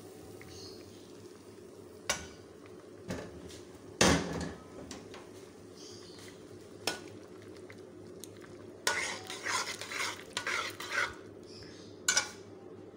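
A metal spoon clinking and scraping against a metal cooking pot as tomato purée is stirred into a potato curry. There are a few sharp knocks, the loudest about four seconds in, and a quick run of scraping strokes from about nine to eleven seconds.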